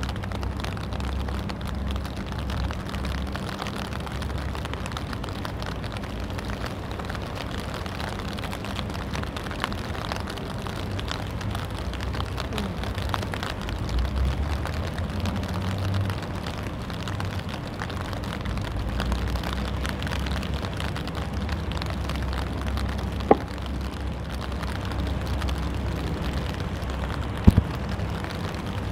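Steady rain and wind noise over a low rumble, with two brief sharp knocks in the last quarter.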